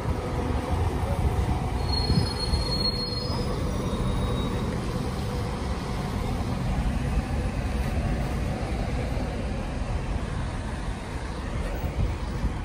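MAN Lion's City A23 CNG articulated city bus driving slowly past with a steady low rumble of engine and tyres. A brief high squeal comes about two seconds in.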